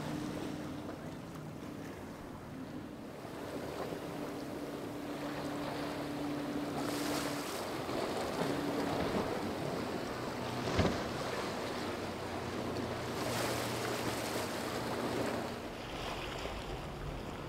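Outboard-powered boats running past at speed: a steady engine drone, at first from a Pursuit 355's triple Yamaha 300 outboards, under the hiss of spray and water off the hulls, with wind buffeting the microphone. A single sharp knock about eleven seconds in.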